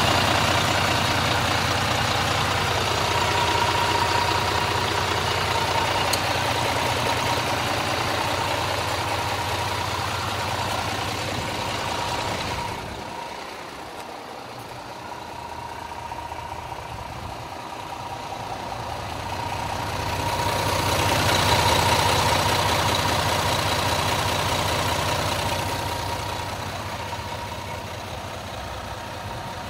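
Cummins 10.8-litre diesel of a Peterbilt 320 truck idling steadily with the cab tilted forward and the engine bare, a steady whine above the engine note. The sound fades for several seconds in the middle and then swells back.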